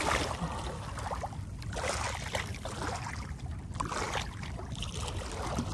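Wind rumbling on the microphone, with splashy water noise swelling and fading about every two seconds.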